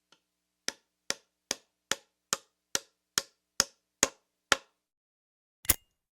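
A row of about ten sharp, evenly spaced clicks, roughly two and a half a second, then a single louder click near the end.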